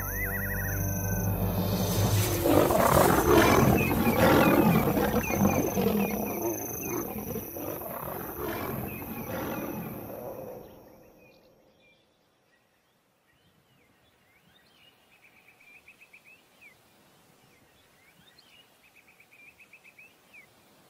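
Lions roaring in a fight, loud and dense for about the first ten seconds, then fading away. Faint chirping follows.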